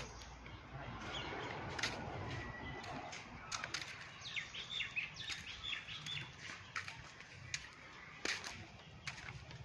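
Birds chirping in trees: scattered short, sharp calls, with a quick run of falling chirps in the middle, over faint outdoor background noise.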